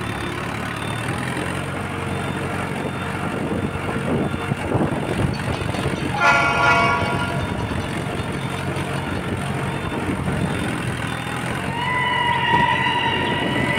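Mahindra Arjun 555 tractor's four-cylinder diesel engine running steadily while the tractor is driven along, with one short horn honk about six seconds in. A steady higher tone joins near the end.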